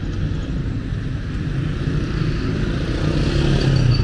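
Street traffic: a motor vehicle engine running close by, a low rumble that grows louder toward the end.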